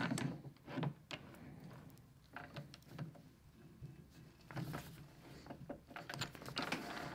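Light, scattered metallic clicks and knocks as a steel bar is set in a three-jaw lathe chuck and the chuck is turned by hand.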